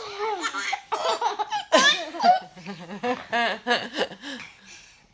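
A baby belly-laughing in a run of quick bursts, with an adult laughing along.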